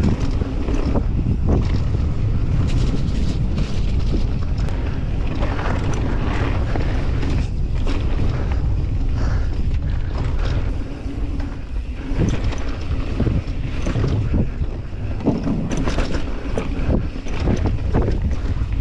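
Wind buffeting the helmet camera's microphone as a downhill mountain bike descends a rough dirt and gravel trail, with tyre noise and frequent knocks and rattles from the bike over bumps.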